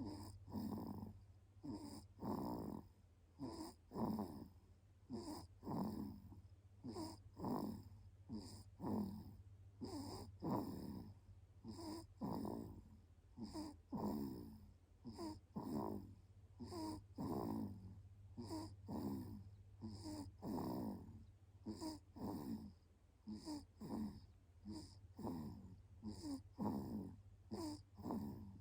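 Newborn baby snoring in deep sleep: short, rapid, rough breaths, a little more than one a second.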